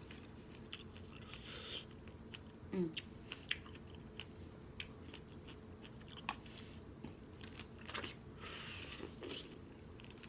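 Close-up mouth sounds of someone chewing strawberries with yogurt: wet smacking and clicking with bites, and a short hummed 'mm' about three seconds in.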